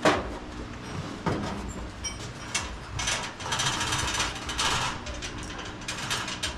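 Metal knocking and rattling as a 1939 Ford transmission is worked against a flathead V8 while being lined up on a floor jack. A sharp clank rings at the start, a second comes about a second later, and a longer rattle follows midway.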